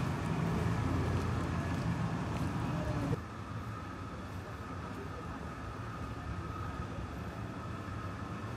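Outdoor street ambience with a steady hum of road traffic. A heavier low rumble in the first three seconds stops abruptly, leaving a quieter, even traffic noise.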